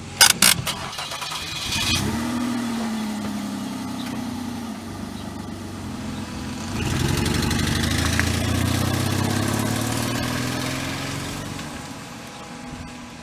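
A 2000 Mazda MPV's 2.5-litre V6 is revved twice, each rev rising and then sinking slowly back toward idle, with a few sharp clicks right at the start. The engine has an exhaust leak at the manifold and a misfire.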